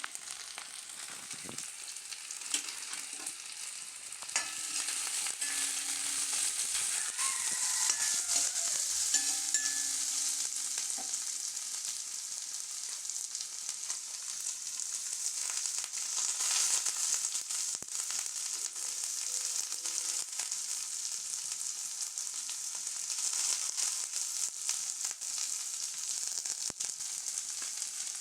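Food sizzling in hot oil in a pan, a steady hiss dotted with small crackles. It grows a little louder about four seconds in.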